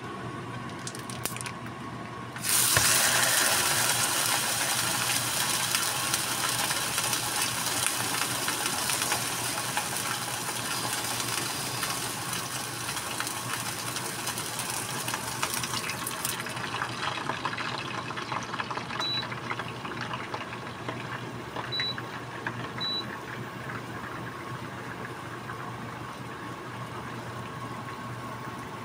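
Tocino (sweet cured pork) hitting a hot nonstick frying pan and sizzling: a sudden loud sizzle starts about two and a half seconds in, holds steady, then slowly eases off.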